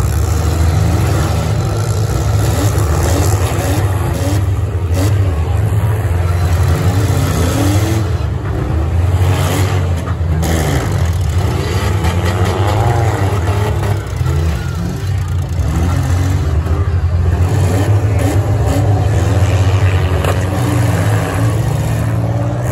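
Several demolition derby cars' engines running and revving at once, loud and continuous, their pitch rising and falling over and over.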